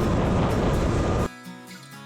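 Loud, steady mechanical drone of harvest machinery that cuts off suddenly just over a second in, giving way to quiet background music.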